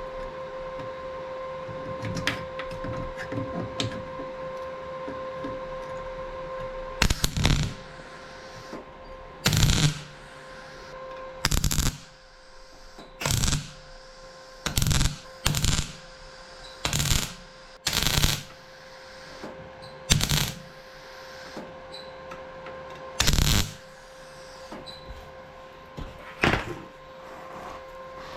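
Welder laying short tack welds on sheet steel: about a dozen brief bursts of welding crackle, each under a second and one to three seconds apart, starting about seven seconds in. A steady hum runs underneath.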